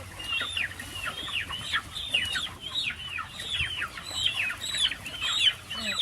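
A flock of young chickens peeping continuously: many overlapping high calls, several a second, each falling in pitch.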